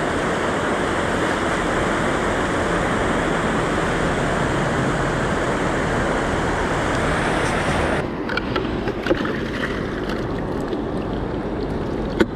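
River water rushing steadily through a riffle. About eight seconds in it drops abruptly to a quieter flow, with a few faint clicks and two short ticks near the end.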